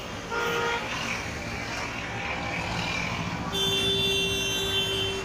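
Road traffic with car horns: a short horn toot about half a second in, then a long steady horn blast held for about a second and a half near the end.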